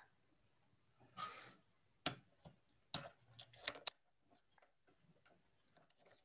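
Hands handling a webcam or computer close to the microphone: a brief rustle about a second in, then a run of sharp clicks and knocks, then a few faint clicks.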